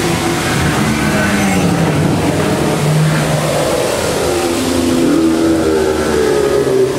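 Dark ride show soundtrack played over loudspeakers: long pitched sounds that slowly rise and fall over a steady hiss.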